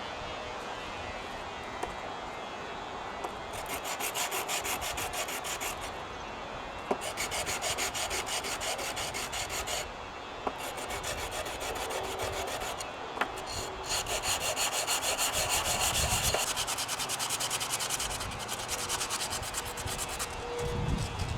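120-grit sandpaper rubbing on a wooden hand-plane handle in several runs of fast back-and-forth strokes, with short pauses and a few light clicks between the runs.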